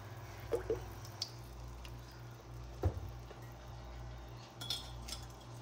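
Heavy whipping cream being poured into a hot skillet: a soft liquid pour with dripping, over a steady low hum. A single short knock comes just before three seconds in.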